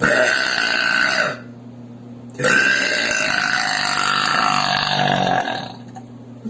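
A woman burping loudly twice: a short burp of just over a second, then after a pause a long drawn-out burp lasting about three seconds.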